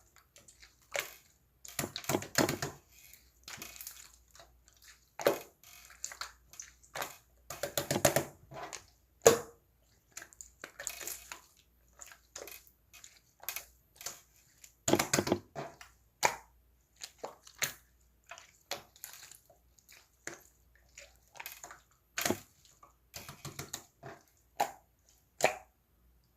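Irregular short bursts of crackling, squishing handling noise, spaced a second or so apart with quiet gaps between, the sharpest about nine seconds in.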